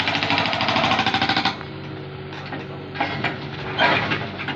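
Hydraulic breaker on a Hyundai R35Z-9 mini excavator hammering the ground in rapid, even blows, stopping about a second and a half in. The excavator's diesel engine keeps running steadily after the hammering stops.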